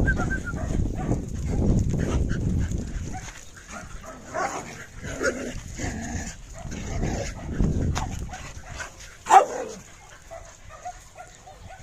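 Dog barking repeatedly, with one much louder bark about nine seconds in.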